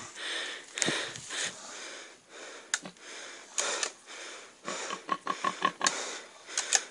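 Short, breathy sniffs and gasps at irregular intervals, several with a faint squeaky note around the fifth and sixth second.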